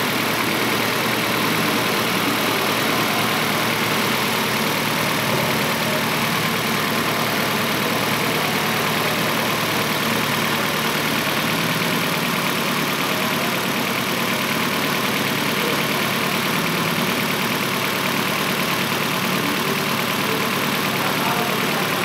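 2006 Nissan Altima's four-cylinder engine idling steadily while misfiring: cylinder number four is dead, so it runs on three cylinders.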